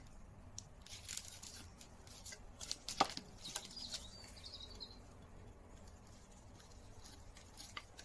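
Faint clicks and scrapes of a screwdriver working the screw that holds the wooden rear handle on a Record 010 bench rebate plane, with one sharper click about three seconds in.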